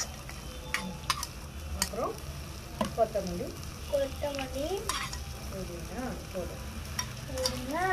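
A small metal slotted spoon scraping and clicking against a small steel pot as chopped vegetables are pushed in and stirred, over a light sizzle of frying.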